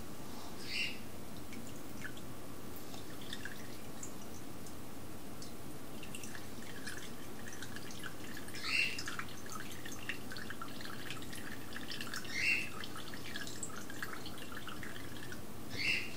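Brewed coffee dripping slowly from a paper filter in a cut-off plastic soda bottle: scattered small drips over a steady faint hiss, with a few louder drops, the slow drip of a filter clogging at the bottom.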